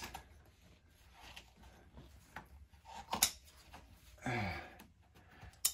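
Faint rustling and rubbing of burlap against a wooden chair frame as it is worked by hand, with a couple of sharp clicks.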